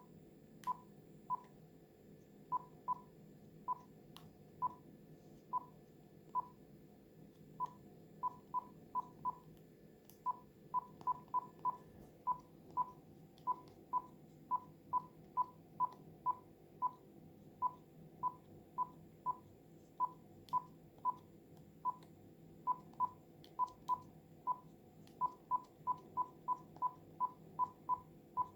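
Telephone keypad keys pressed at random, each press giving a short beep at the same pitch. The presses come irregularly, sometimes singly and sometimes in quick runs of several.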